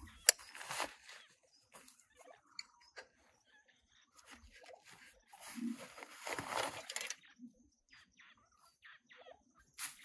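Canvas backpack being handled and unpacked: the pack's fabric rustling and straps and buckles being worked, with a sharp click about a third of a second in and a longer rustle in the middle.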